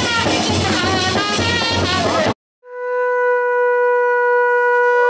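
Music cuts off abruptly about two seconds in; after a brief gap a conch shell (shankha) is blown in one long steady note, and a second, slightly higher conch joins right at the end.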